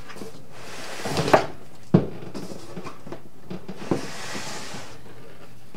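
A wooden cabinet shelf being shifted into place on top of an upside-down lazy susan turntable, with soft sliding scrapes and three wooden knocks, about one, two and four seconds in.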